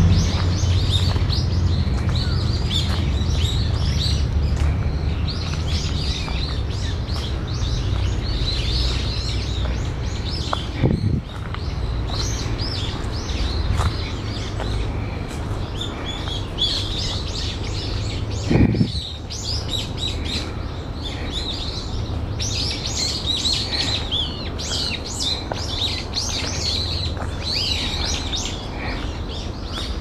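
Brown-eared bulbuls calling: many short, sharp chirps overlapping throughout, busiest in the second half. A steady low rumble lies underneath, with two dull knocks, one about a third of the way in and one a little past halfway.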